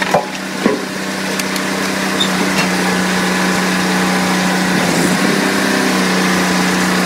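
Firewood processor running with a steady engine drone. Two sharp knocks of split wood come in the first second.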